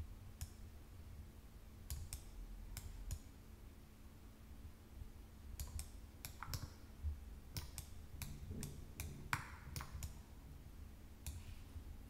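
Computer mouse buttons clicking irregularly, often in pairs a fraction of a second apart, over a faint low hum.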